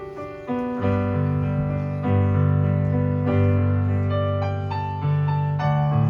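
Electric piano playing slow, sustained chords, with deep bass notes coming in about half a second in and the music growing louder.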